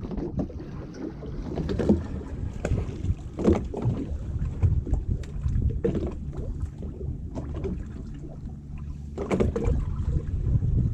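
Fishing boat at sea: a steady low rumble with irregular knocks and slaps every second or so.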